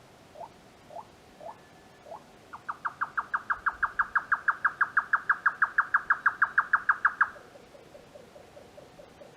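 Grey nightjar calling in three ways. First come short rising single notes, about two a second. Then, about two and a half seconds in, it breaks into its loud, rapid, even "kyo-kyo-kyo" churring, the "cucumber-chopping" song, about six notes a second for nearly five seconds. This ends in a fainter, lower run of quick notes.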